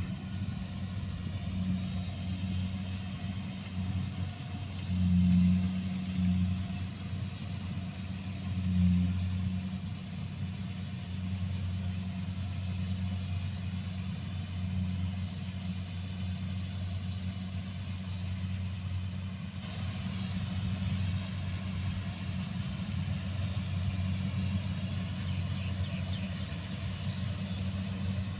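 Kubota rice combine harvester's diesel engine running steadily with a low hum as it cuts rice, swelling louder briefly twice in the first ten seconds.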